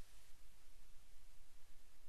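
Faint steady hiss with a low hum underneath: the background noise floor in a pause of a synthesized voice-over, with no other sound.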